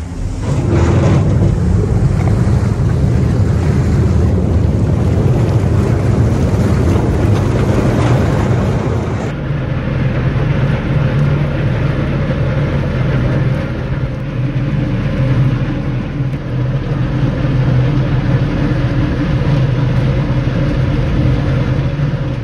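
Vaporetto water bus's diesel engine running loud and steady, with propeller wash churning the water as the boat comes alongside a floating pontoon stop. The engine note rises sharply just after the start.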